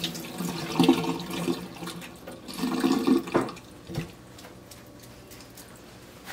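Water splashing and running off in a stainless steel kitchen sink just after the tap is shut off, as a freshly rinsed raw pheasant is handled. The sound comes in uneven bursts with a couple of short knocks, then goes quiet.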